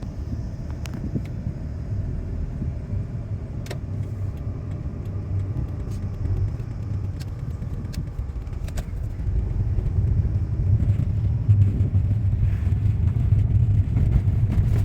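A moving car's steady low rumble that grows louder about ten seconds in, with a few light clicks.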